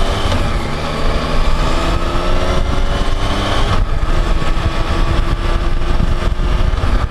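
Yamaha FJ-09's three-cylinder engine pulling away through the gears. The engine note rises, drops at a shift just after the start and again about four seconds in, then holds steady, over wind rumble on a helmet-mounted microphone.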